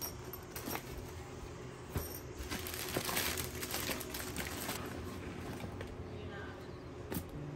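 Clear plastic bags crinkling as they are handled and lifted out of a box, loudest for a couple of seconds in the middle, with a few light knocks of bags and gear being moved.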